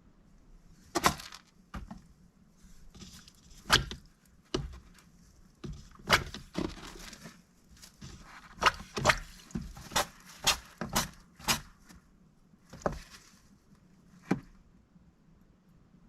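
A rescued mallard duck moving about its enclosure: a string of sharp, irregular knocks and taps, with splashy hissing between them. The taps bunch together in the middle and thin out near the end.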